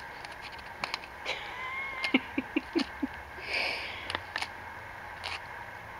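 A small Bichon–Maltese dog tearing at a dry corn husk: scattered crackles, snaps and rustles of the husk, with a short rustling burst about three and a half seconds in.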